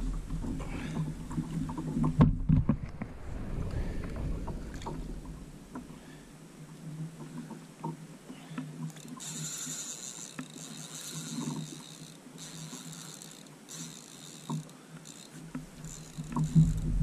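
Water sloshing against a plastic kayak hull with low wind rumble, loudest in the first two seconds. From about nine seconds in, a high-pitched rasping buzz comes in spells: the spinning reel's drag giving line to a hooked fish.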